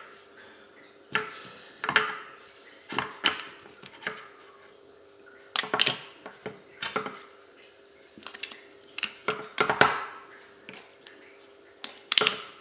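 Irregular clicks and knocks of a small battery-powered portable speaker's hard parts being handled as its battery compartment is worked, a dozen or so sharp taps, over a faint steady hum.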